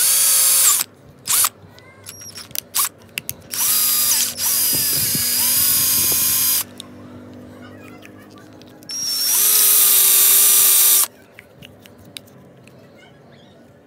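Klatter cordless drill with a twist bit boring holes through white PVC end caps. It runs in several bursts of one to two seconds with short blips between, its motor whine rising quickly as each run spins up and then holding a steady pitch.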